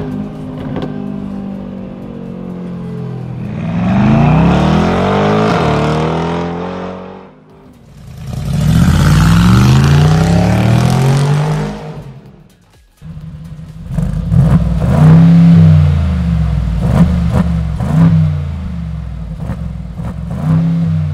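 Mercedes-AMG G63's twin-turbo V8 through a Fi Exhaust valvetronic cat-back exhaust. First it is heard from inside the cabin while driving, then accelerating with rising pitch, and then from outside accelerating hard. After a cut about 13 seconds in, the parked truck is blipped in a series of short revs from idle with the exhaust valves closed.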